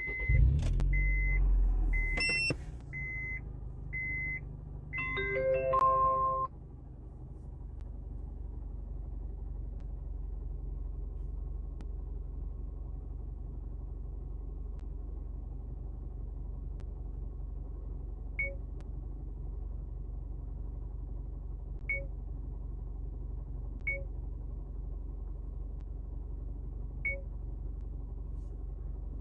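Car engine starting, heard from inside the cabin: a loud low rumble for about two seconds, then a steady idle. A high warning chime beeps about once a second for the first five seconds, and a short run of rising tones sounds about six seconds in.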